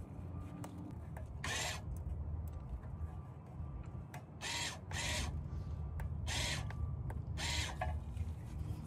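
Rear electronic parking brake caliper motor of a 2019 Chevrolet Equinox buzzing in about five short pulses as it is fed power from a power-probe tool, driving the stuck parking brake piston back to release it.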